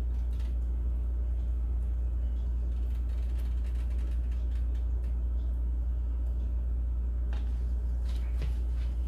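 A steady low rumble at an even level, with a few faint clicks near the end.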